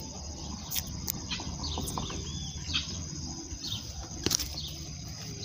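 Birds chirping in short calls over a steady high insect drone, with a few sharp clicks.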